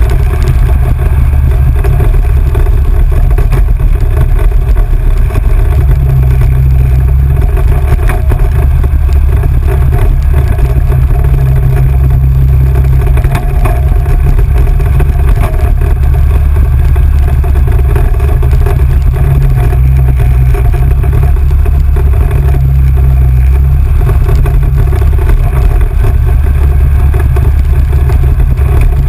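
Engine of an off-road vehicle running steadily while riding, under a heavy low rumble that is the loudest part of the sound.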